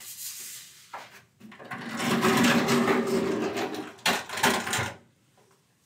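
Handling noise at a wooden lectern: a loud rustling scrape lasting about two seconds, a brief break, then a second, shorter one.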